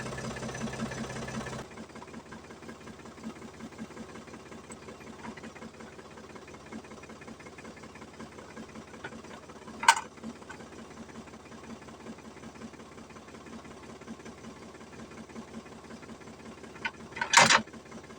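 Ford 4600 tractor engine running steadily with a rhythmic beat. It is louder for the first second and a half, then drops suddenly to a quieter level. Two sharp knocks stand out, one about ten seconds in and a louder one near the end.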